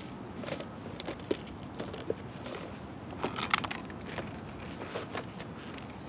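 Two cats eating from bowls: scattered crunches and clicks of dry kibble being chewed and knocking against the bowl, with a short rattling clatter about three seconds in.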